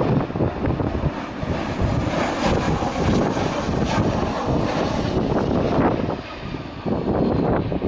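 Fixed-wing aircraft's engines passing, a steady rushing noise that swells through the middle and fades near the end, over heavy wind buffeting the microphone.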